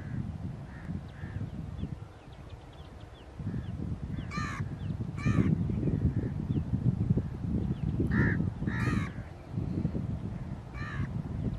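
Crows cawing: five harsh caws, two about four and a half seconds in, two about eight seconds in and one near the end, over a continuous low rumbling noise.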